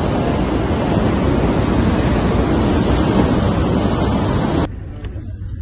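Loud rush of churning wake water beside a moving ferry's hull, mixed with wind buffeting the microphone. It cuts off suddenly near the end to a much quieter low hum.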